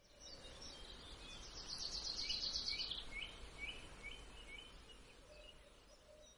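Faint birdsong over a low background rumble: a quick, dense trill in the second and third seconds, then a string of short falling chirps about twice a second that fade toward the end.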